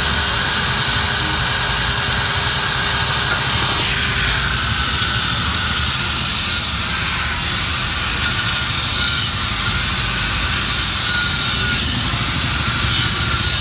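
Electric angle grinder running steadily with a high motor whine, its disc worked against a motorcycle alloy wheel. About four seconds in the pitch drops a little, and it wavers after that.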